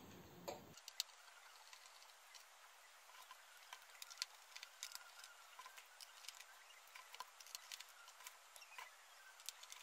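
Faint, irregular little clicks and scrapes of a small Phillips screwdriver working the 3 mm screws out of a MacBook Pro's aluminium bottom case.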